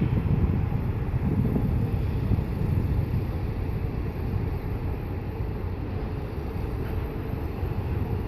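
Wind buffeting the microphone: a steady low rumble that swells and eases in gusts.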